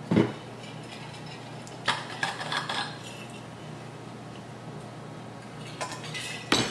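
A sharp knock, then a run of light clinks about two seconds in and a few more clicks near the end, as an insulated water bottle is picked up and opened for a drink.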